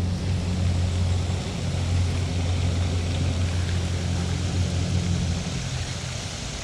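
A steady low motor-like drone over an even hiss, easing off about five and a half seconds in.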